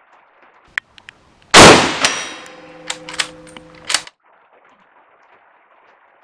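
A single shot from a Carcano M91/41 bolt-action rifle (6.5×52mm Carcano) about a second and a half in, with a ringing tail, followed by several sharp metallic clicks of the bolt being worked to chamber the next round.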